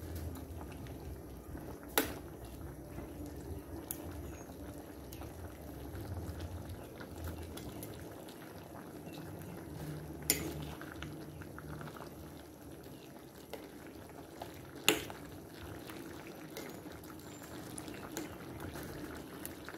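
Papaya in coconut milk (ginataang papaya) bubbling at a boil in a pot, a steady low bubbling. Three sharp clicks sound over it: one near the start, one about halfway and one about three-quarters through.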